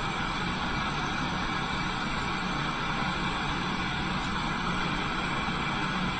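Lampworking bench torch flame burning with a steady, unbroken rushing hiss.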